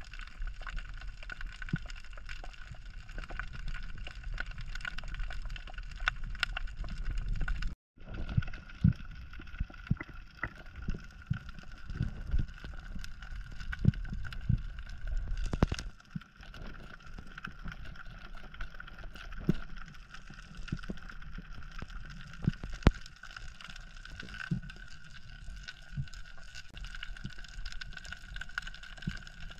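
Underwater sound picked up by an action camera in its waterproof housing: a muffled low rumble with a faint steady high hum, and scattered clicks and knocks throughout. The sound cuts out for a moment about eight seconds in.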